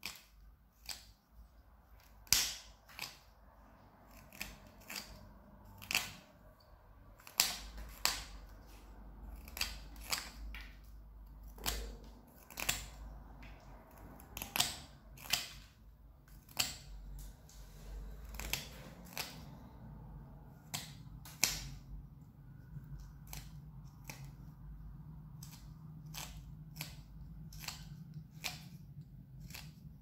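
Carving knife slicing chips off a small piece of branch wood, each cut a short crisp snick, coming irregularly about once or twice a second.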